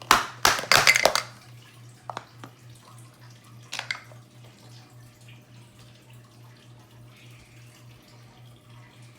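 Plastic Play-Doh tools clattering and tapping on a table: a quick run of clicks and knocks in the first second, then single taps about two and four seconds in. A faint steady low hum lies underneath.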